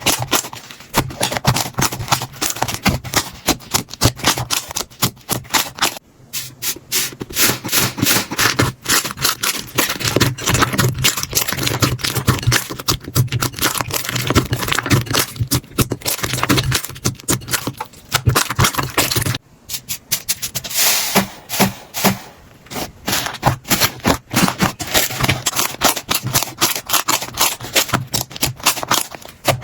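Slime being squeezed and poked by hand: rapid, dense crackling and clicking, with brief breaks about six and nineteen seconds in.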